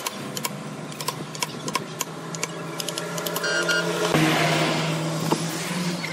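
Small electric power tool motor running steadily with a low hum, scattered clicks and ticks over it. It gets louder and rougher about four seconds in.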